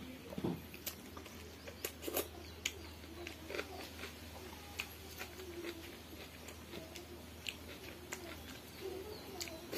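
Close-up eating sounds: chewing and mouth smacks, with fingers picking food from steel bowls, making scattered small clicks and soft wet sounds. A steady low hum runs underneath.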